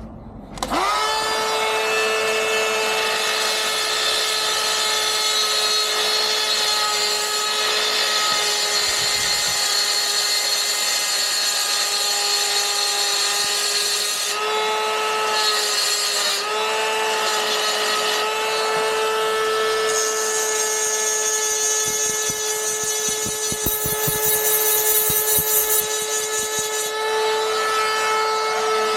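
Handheld rotary tool running at a steady high whine while it grinds out the metal strike plate, widening the opening so the gate's latch can lock into it. It starts about half a second in, dips briefly about halfway, and a louder, harsher grinding joins it for several seconds in the second half.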